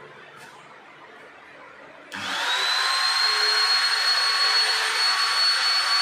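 Makita electric router switched on about two seconds in: the motor spins up with a rising whine, then runs loud and steady at full speed with a high-pitched whine.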